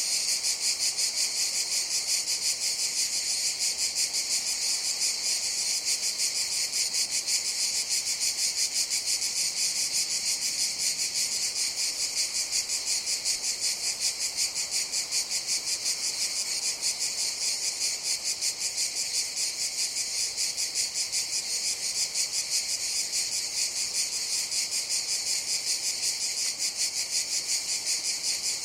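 A chorus of cicadas buzzing, a steady, high, fast-pulsing drone that does not let up.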